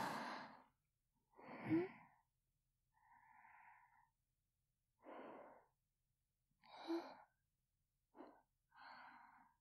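A woman's quiet breaths and sighs, close to a binaural dummy-head microphone. A longer sigh comes at the start, then about five shorter breaths, a couple of them with a slight voiced sound.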